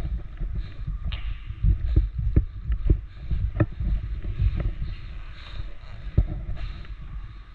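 Irregular dull thumps and sharp knocks over a low rumble: a player's own movement and gear handling heard close on a body-worn camera microphone.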